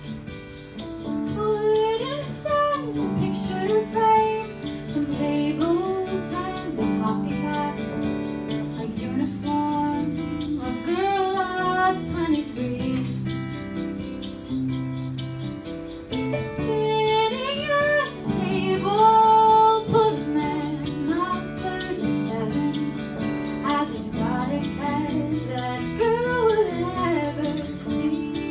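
Woman singing a musical theatre song solo, with instrumental accompaniment holding steady notes beneath her. The accompaniment plays alone at first, and her voice comes in about two seconds in.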